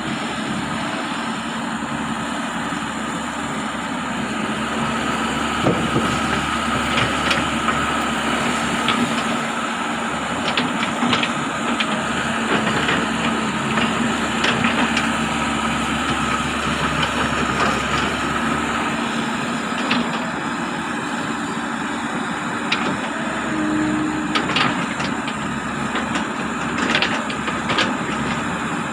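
Excavator's diesel engine running steadily under hydraulic load, with scattered sharp knocks and scrapes as the bucket digs into soil and stones.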